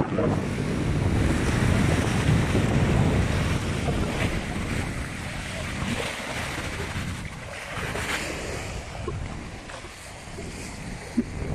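Storm wind buffeting the microphone over rough, choppy sea, with waves washing and breaking. It is strongest in the first few seconds and then eases, with a short sharp knock near the end.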